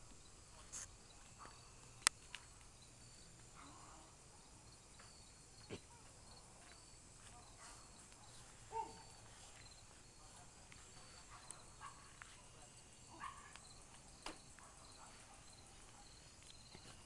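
Quiet outdoor ambience: faint high chirps repeat evenly throughout, with a few soft clicks, the sharpest about two seconds in.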